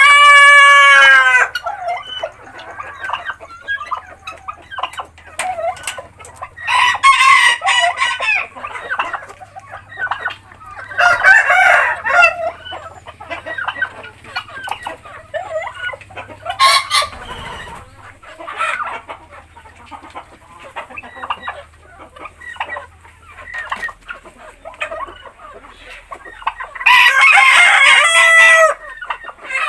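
Roosters crowing several times, one crow cut in at the very start and another with a falling tail near the end, with hens clucking steadily in between.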